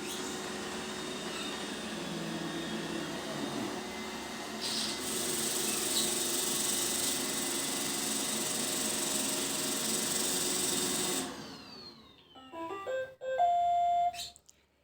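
iRobot Roomba robot vacuum running with a steady whir that winds down about eleven seconds in. A short electronic melody of stepped beeps follows: the tune the Roomba plays when it has finished its cleaning cycle.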